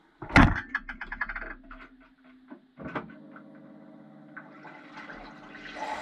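Siemens dishwasher starting its cycle, heard from inside the tub: a sudden clunk, a quick run of clicks, then water running in and a motor humming steadily, with the rush of water building near the end.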